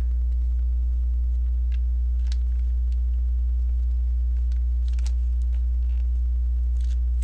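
Steady low electrical mains hum, with a few faint light clicks of plastic LEGO pieces being handled.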